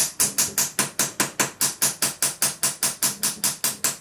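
A fly-tying hair stacker tapped down over and over, about six sharp taps a second, to even up the tips of a clump of elk hair.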